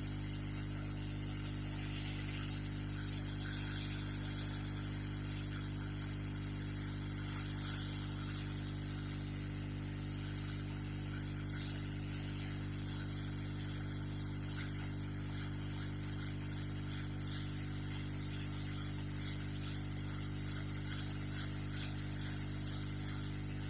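Hot air rework station blowing at full air and full heat onto the motherboard: a steady hiss over a low electrical hum, with a single click near the end.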